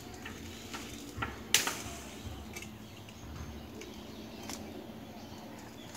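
A few sharp knocks or snaps, the loudest about one and a half seconds in, over a quiet outdoor background with no saw running.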